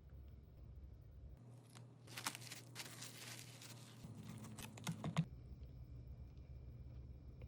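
Plastic wrap crinkling as a sandwich is wrapped and handled. The crackly rustling comes in bursts from about a second and a half in to about five seconds, with a few sharper crackles near the end of that stretch.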